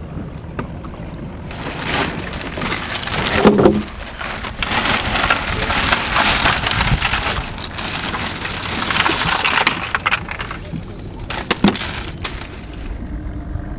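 Loud crackling, rustling noise of fabric rubbing against the camera's microphone, from about a second and a half in until about ten seconds in, with a few sharp crackles near the end.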